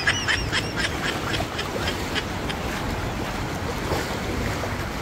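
Steady rush of wind-driven waves and floodwater. Over it, a rapid run of short repeated calls, about four a second, fades out over the first two and a half seconds.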